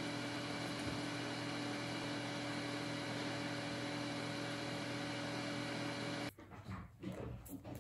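Steady machine hum with hiss and several constant tones, breaking off abruptly about six seconds in to quieter, uneven rustling sounds.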